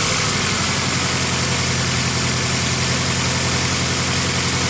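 2000 Honda CR-V's four-cylinder engine idling with an intermittent misfire behind a P1399 code, which is later traced to a faulty spark plug in cylinder number two.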